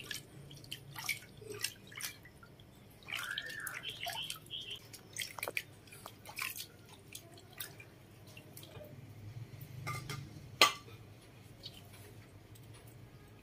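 Water dripping and splashing in a plastic basin as a hand scoops it over bathing baby monkeys, in many small scattered drips. A brief high squeak rises and falls about three seconds in, and a sharp tap comes about ten seconds in.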